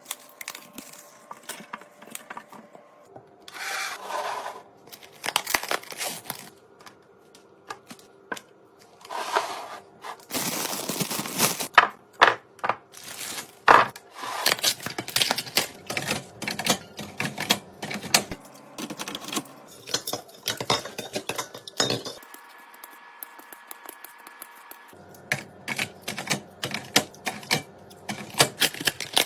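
Rapid clicks, taps and knocks of food containers and packaging being handled and set down, with several bursts of rustling hiss.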